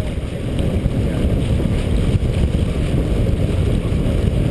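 Steady wind rumble on the camera microphone aboard a J/124 sailboat under way, with water rushing along the hull.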